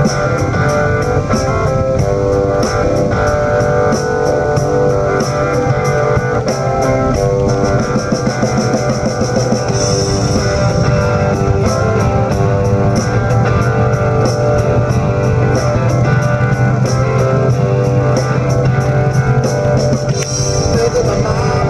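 Rock music with electric guitar and a drum kit keeping a steady beat.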